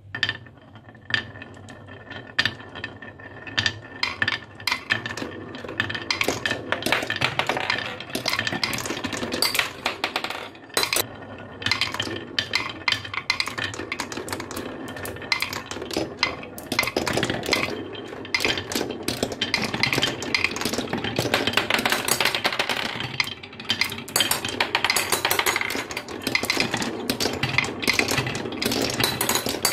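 Glass marbles rolling down the winding groove of a wooden HABA marble-run slope: a steady rolling rattle full of quick clicks as they knock against the wooden groove walls and each other. Near the end they circle the round wooden funnel bowl.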